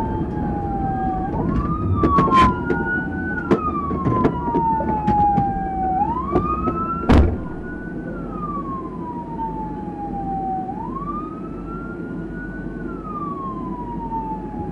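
Police siren wailing in a slow rise and fall, a quick climb and then a long sliding drop, repeating every few seconds, with a fainter second siren above it. Under it a low rumble and several sharp knocks, then a loud bang about seven seconds in, after which the rumble dies down and the siren goes on.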